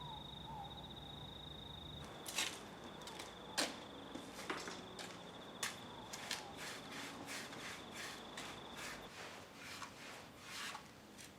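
A steady, high-pitched, pulsing insect trill that fades out near the end, under a run of irregular sharp clicks and knocks that start about two seconds in.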